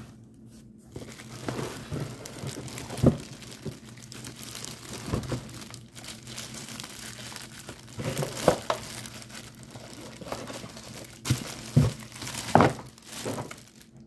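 Plastic wrapping crinkling and a cardboard box rustling as a boxed pet grooming vacuum is unpacked, with a few sharp knocks of packing against the box.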